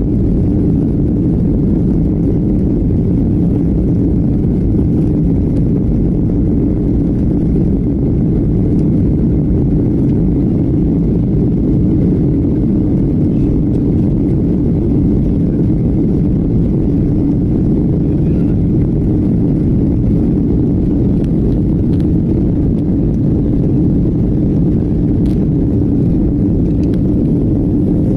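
Airliner in flight heard from inside the cabin: a steady, unbroken low rumble of engine and airflow noise.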